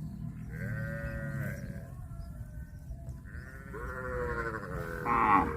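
A farm animal bleating twice: a call of about a second and a half, then a longer, louder one that swells sharply near the end.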